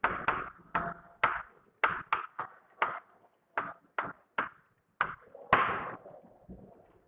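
Chalk tapping and scraping on a chalkboard as a word is written: about fourteen short, sharp strokes at an uneven pace of roughly two a second, with one longer stroke about five and a half seconds in.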